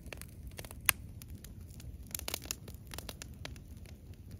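Wood campfire crackling, with irregular pops and one sharper snap about a second in.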